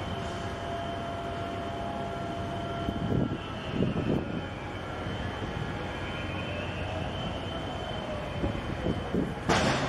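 A steady mechanical hum and rumble, with a few low thumps and a short sharp noise burst near the end.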